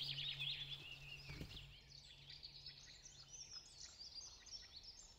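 Faint birdsong: many small birds chirping and twittering at once in forest. A low held music drone fades out over the first few seconds.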